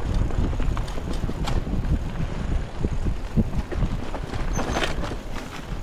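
Wind rushing over the microphone with a rattle of short knocks from riding fast downhill over rough ground, a sharper clack about a second and a half in and again near the end.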